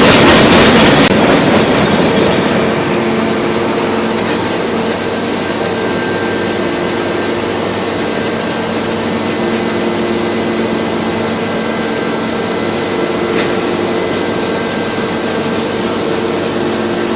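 Industrial machinery running steadily: a dense mechanical noise with a few steady humming tones, louder for the first two seconds and then even.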